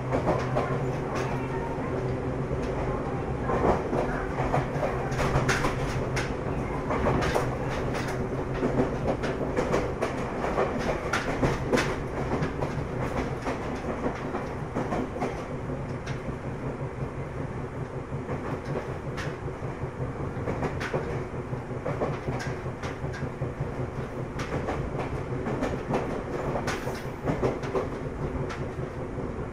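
Ryutetsu 5000-series electric train running, heard from inside the car: a steady rumble and hum with wheels clicking over rail joints, the clicks more frequent in the first half.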